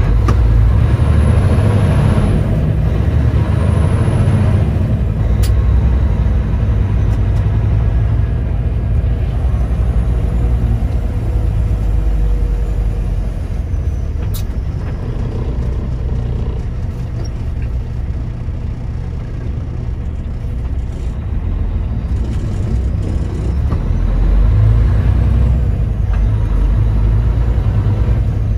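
Kenworth semi truck's diesel engine running under way, heard from inside the cab as a steady low rumble that swells near the start and again near the end.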